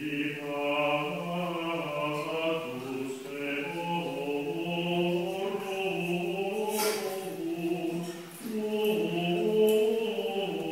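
A choir singing Latin plainchant (Gregorian chant) in slow, sustained phrases. A brief sharp noise cuts in about seven seconds in.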